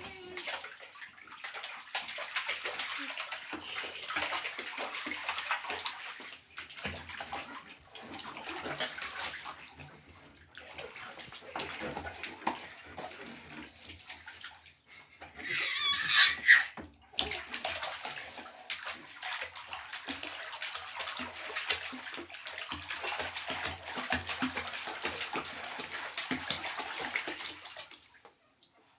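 Water splashing and sloshing in a bathtub, on and off, as someone is bathed and moves about in it. About sixteen seconds in, a brief loud high squeal cuts through the splashing.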